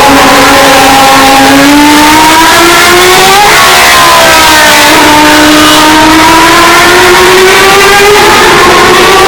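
Historic Formula One race car engine accelerating hard, its pitch climbing steadily. It drops sharply at an upshift about three and a half seconds in, climbs again, and shifts once more near the end. The recording is very loud, close to full scale.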